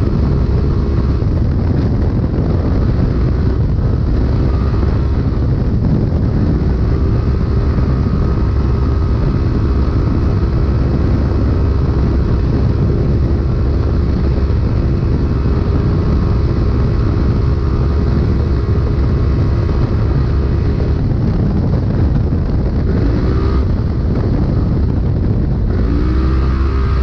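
Polaris Pro Stock UTV engine running hard at speed, with heavy rumble from the car over rough ground, heard from inside the car. The engine note holds steady for long stretches, then dips and climbs again twice near the end.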